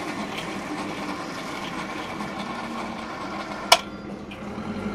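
Electric chain hoist running steadily as it lowers its hook, a constant motor hum. A single sharp click comes about three and a half seconds in.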